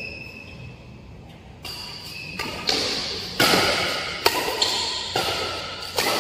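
Badminton rally: rackets hitting the shuttlecock roughly once a second, with short high squeaks of shoes on the court floor in between. It starts about a second and a half in, after a quieter moment.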